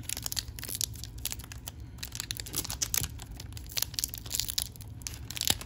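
Foil wrapper of an Upper Deck MVP hockey card pack crinkling and tearing as it is worked open by hand with some difficulty, in a run of irregular crackles with a louder rip near the end.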